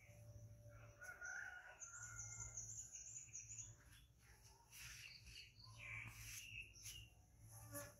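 Faint bird calls and chirps over a steady low hum.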